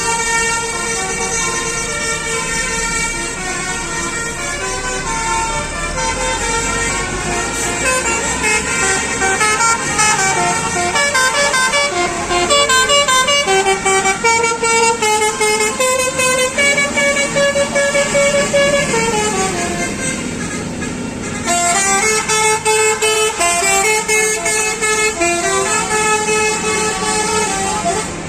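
Indonesian 'telolet basuri' bus horns playing melodies, stepping quickly from note to note, with several tunes overlapping. The horns ease off briefly about three-quarters of the way through, then start up again.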